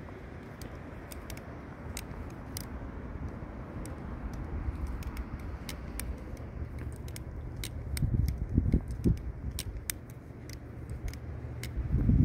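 Balisong (butterfly knife) handles clicking and clacking against each other and the blade as it is spun through repeated rollovers, a few sharp clicks a second at an uneven pace. Underneath is a low rumble that swells about eight seconds in and again near the end.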